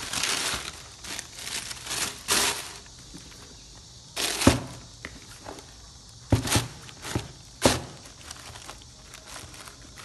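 Packing paper rustling and crinkling as it is pulled back and handled around sneakers in a shoebox. It comes in a string of separate rustles, the sharpest about halfway through and again near the end.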